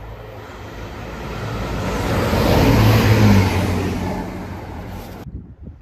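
Chiltern Railways diesel multiple unit passing the platform without stopping: the rumble of its engines and wheels swells, peaks about three seconds in and fades, then cuts off suddenly just after five seconds in.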